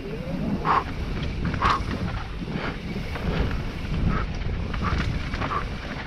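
Propain Spindrift enduro mountain bike running fast down a dirt singletrack: tyres on loose dirt, the bike rattling over bumps, and wind rushing over the microphone. Short sharp noises come about once a second.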